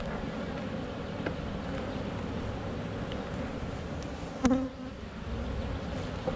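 Honey bees buzzing steadily from an open nucleus hive, with one brief knock a little past the middle.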